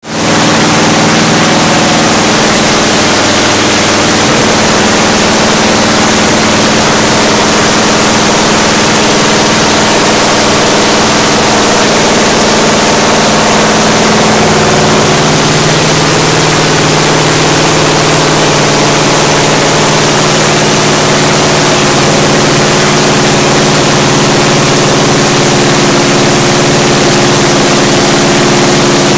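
Freshly rebuilt Ford 289 small-block V8 with headers, running loudly and steadily while being broken in. Its note shifts slightly about halfway through.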